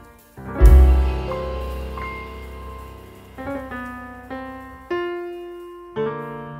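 Background piano music: a slow run of sustained notes, with a deep low note struck about half a second in.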